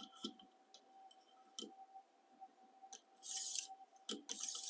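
Two short scraping strokes of a fine-grit sharpening stone drawn along the edge of a high-carbon stainless slicer blade in a guided sharpening rig, after a few light clicks. These are the final refining passes on the edge.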